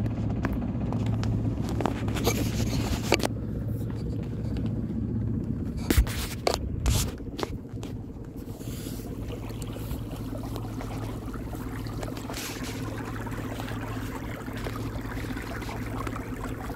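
A sailboat's engine runs at a steady motoring drone, with a few sharp knocks and scrapes around six to seven seconds in. After that the sound is quieter and more of a rushing, with water washing along the bow.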